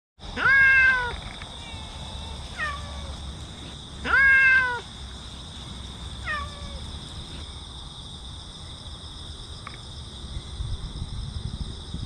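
A cat meowing four times. Two loud, drawn-out meows come about three and a half seconds apart, and each is followed a couple of seconds later by a shorter, fainter one.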